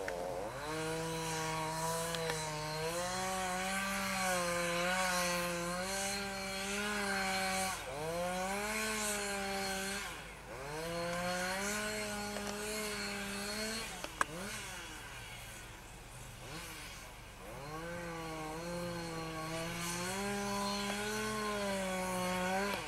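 Two-stroke chainsaw cutting into sea ice beside a frozen-in boat's hull, its engine revving in long pulls under load and dropping back briefly between cuts. It settles lower and quieter for a few seconds past the middle, then revs up again for another long cut.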